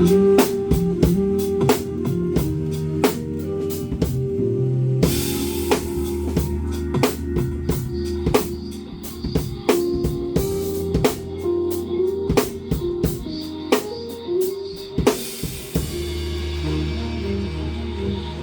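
Live band music with a steady drum beat under a sustained melody line. A cymbal crash comes about five seconds in and again near fifteen seconds, after which the drums drop out and held notes ring on.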